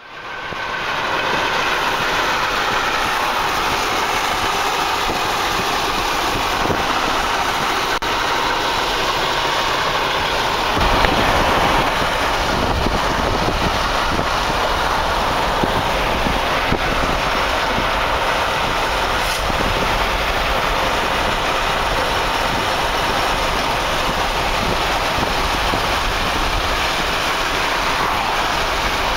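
Steady road and wind noise of a car driving at speed, heard from inside the moving car; about eleven seconds in the low rumble gets stronger and stays so.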